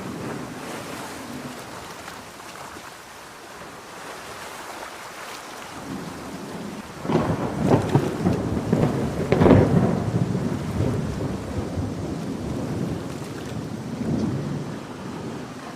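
A thunderclap breaks about seven seconds in: a run of sharp cracks that peaks a couple of seconds later and then rumbles away. Under it is a steady hiss of heavy rain.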